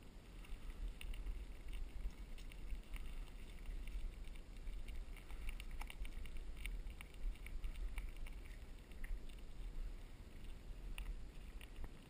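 Cannondale bicycle rolling along a paved path: a steady low rumble of tyres and wind, with scattered light clicks and rattles from the bike.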